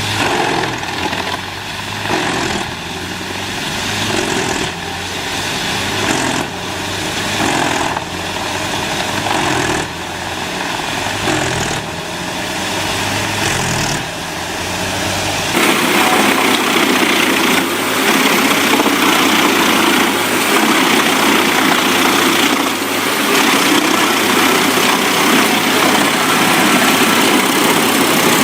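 Engine-driven wood chipper machinery running, swelling and easing every second or two. About halfway through, the sound cuts abruptly to a louder, denser, steady grinding noise.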